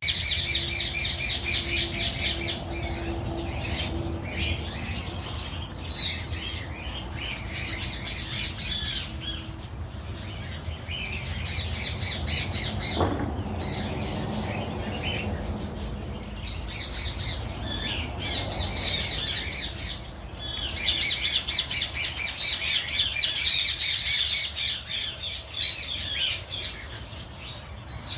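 Birds squawking in bouts of rapid, chattering calls that come and go throughout, over a steady low rumble.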